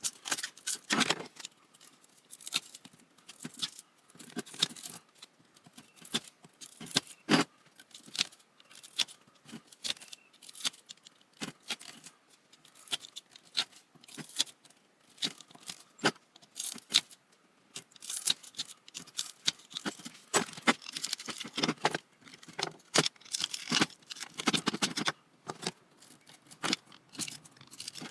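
Pliers pulling copper winding wire out of a ceiling fan motor: a long run of irregular metallic clicks and short scrapes.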